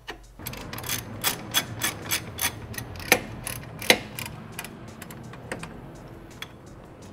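Hand socket ratchet clicking in short strokes as bolts are run in overhead, with two sharper clacks about three and four seconds in and scattered clicks after.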